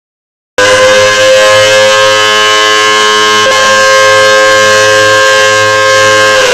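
After about half a second of silence, an outdoor warning siren, sounding during a test, comes in loud on a steady tone that holds one pitch.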